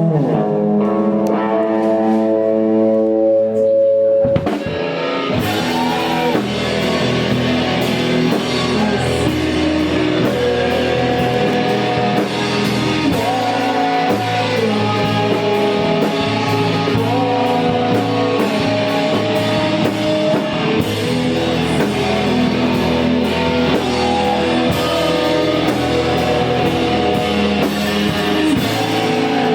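Live emo rock band playing. Electric guitars hold chords for about four seconds, then the drums come in and the full band plays on.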